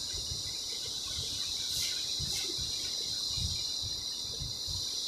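Steady high-pitched background drone, like insects such as crickets, with faint irregular low knocks and two brief scratchy sounds about two seconds in.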